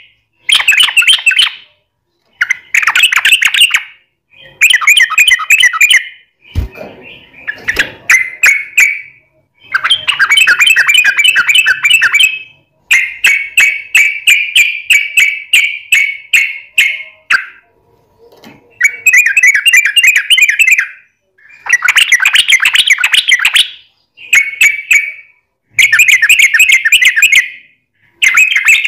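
Yellow-vented bulbul (trucukan) song: loud, repeated phrases of rapid bubbling chatter, each lasting a second or few, with short pauses between them. A single soft knock comes a little after six seconds in.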